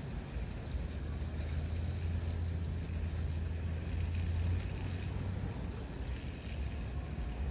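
Seaside ambience: wind buffeting the microphone with a low rumble that swells about a second in and eases after the middle, over the soft wash of small waves.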